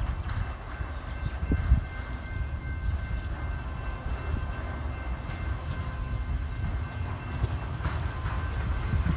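Siemens Nexas electric multiple unit approaching on the line, a low rumble that grows louder near the end as the train draws close.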